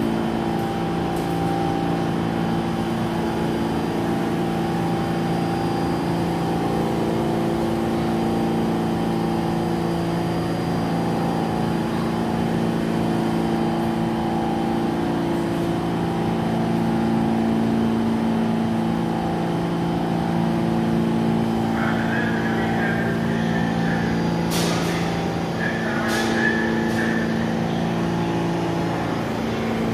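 R160B subway car standing in the station, its equipment humming steadily in several low tones. A brief higher tone and a few sharp clicks come near the end.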